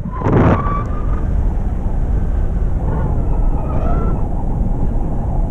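Wind rushing over the microphone of a selfie-stick action camera in tandem paragliding flight: a loud, steady low rumble, with a strong gust in the first half second.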